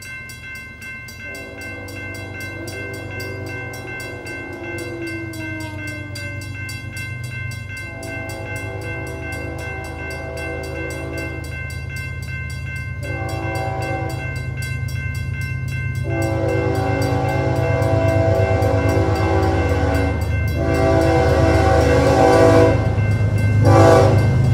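Mechanical railroad crossing bell ringing rapidly and steadily while an approaching BNSF freight train's locomotive horn blows the crossing signal: long, long, short, long. The low rumble of the oncoming locomotive grows louder throughout.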